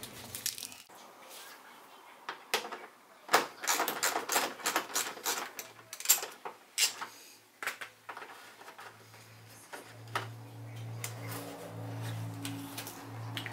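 Hands handling a plastic overfender and its tape: a busy run of clicks, knocks and rustling. From about nine seconds in a low steady hum joins.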